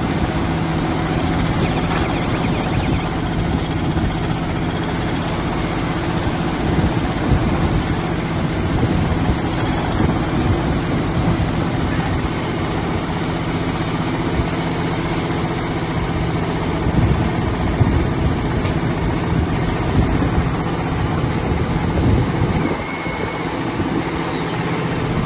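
Silage baler-wrapper machine running steadily: a continuous motor hum with mechanical noise. It drops somewhat in level about 22 seconds in.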